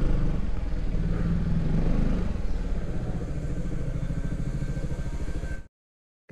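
Yamaha XMAX 250 scooter's single-cylinder engine running at low revs as the scooter rolls slowly, a steady pulsing chug. It cuts off suddenly near the end.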